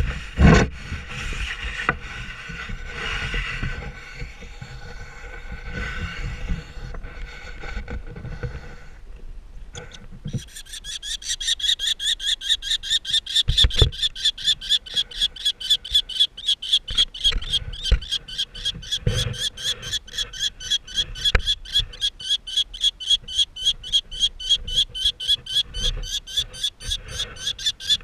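Young common kestrel chicks in a wooden nest box calling in a rapid series of high-pitched, squealing calls, about three a second, starting about ten seconds in. Before that there is handling noise, and a few low knocks are heard among the calls.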